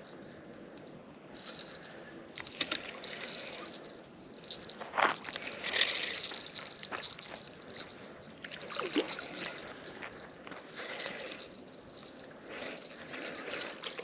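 A spinning reel is cranked to bring in a small hooked bullhead catfish: a steady high whine with short breaks, mixed with scattered splashes and handling knocks at the water's edge.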